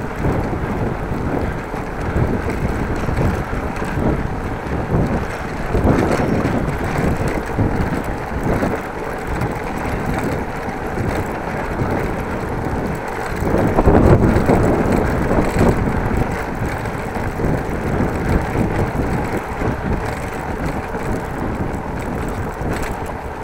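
Wind rumbling on an action camera's microphone during a bicycle ride. It swells louder twice, about six and fourteen seconds in.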